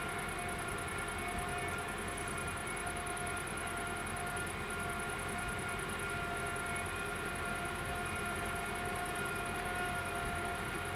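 Level-crossing warning bell of an AŽD 71 crossing signal sounding a steady electronic tone while the crossing is closed for an approaching train. Insects chirp rapidly and evenly in the background.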